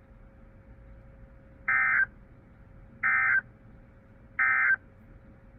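Three short bursts of NOAA Weather Radio SAME digital data, evenly spaced about 1.3 s apart. They are the brief end-of-message code that closes the tornado watch alert. Faint radio hiss and a low, thin steady tone run underneath.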